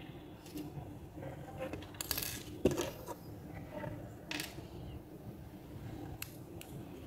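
Light clicks and clinks of small objects handled on a tabletop, a small metal snap hair-clip blank among them, with one sharper knock about two and a half seconds in and a few crisp ticks near the end.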